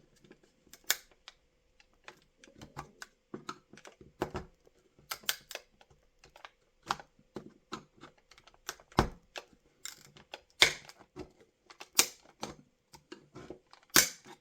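Irregular sharp cracks and clicks of plastic giving way as the roof of a Corgi Original Omnibus Optare Delta model bus is prised off, several louder snaps among the smaller ones.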